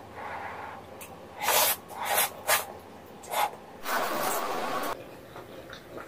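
A person slurping instant ramen noodles: several short, sharp slurps, then a longer one about four seconds in.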